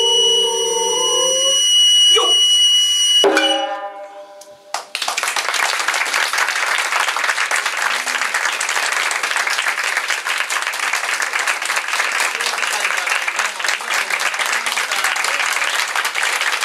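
Closing notes of a nagauta ensemble: held singing with a high bamboo flute line, then a couple of final struck notes from the drums and shamisen. About five seconds in, audience applause begins and continues steadily.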